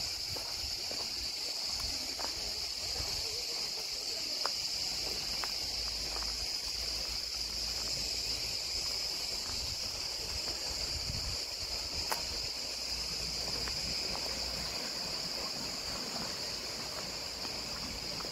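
Steady high-pitched chorus of insects over a low rumble, with a sharp click about four and a half seconds in and another about twelve seconds in.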